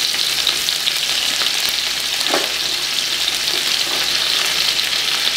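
Sliced onions frying in hot oil and ghee in a large aluminium kadai: a steady sizzle.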